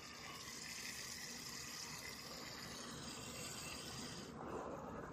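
Water running from a garden hose into a 30-gallon water bladder as it fills with ballast water: a faint steady hiss that shifts lower about four seconds in.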